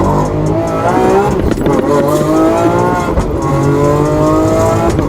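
Lamborghini Aventador SVJ's V12 engine accelerating hard: it climbs in pitch three times, dropping back at each upshift, about a second and a half in and again past three seconds.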